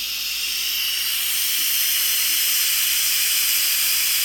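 Instant Pot's steam release valve venting pressure after cooking: a steady, loud hiss of escaping steam that grows a little louder about a second in.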